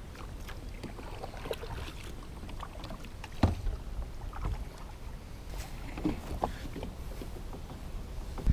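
Kayak paddle strokes and water splashing as a sit-on-top kayak is paddled up to a grassy bank. A low rumble runs underneath, with a few knocks, the clearest about three and a half seconds in.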